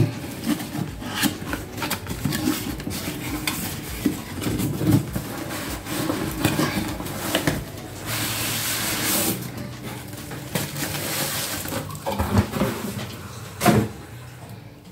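A cardboard box and its packing being handled and pulled open: irregular knocks, scrapes and rustling as a tightly packed sandwich maker is worked out of it, with two longer stretches of rustling in the second half.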